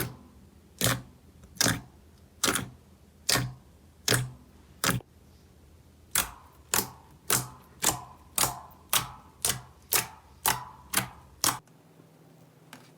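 Slime being handled, giving a regular series of sharp, crisp pops: about one a second at first, then after a short pause quicker, about two a second, stopping suddenly near the end.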